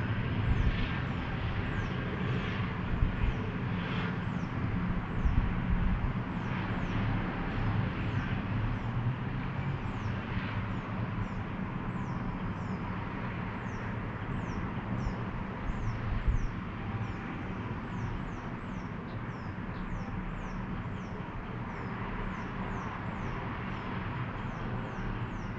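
Outdoor town ambience: a steady low hum of traffic and machinery with a few short louder knocks, and small birds repeating short, high, falling chirps, several a second.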